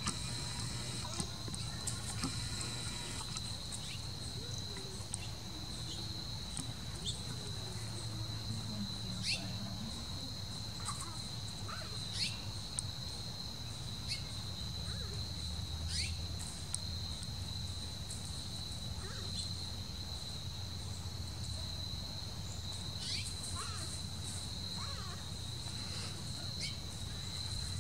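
Insects trilling steadily on one constant high note, with a few short falling chirps now and then.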